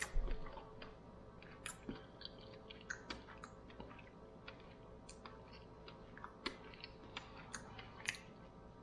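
A person chewing food with the mouth open: soft, irregular wet clicks and smacks, a couple a second at times.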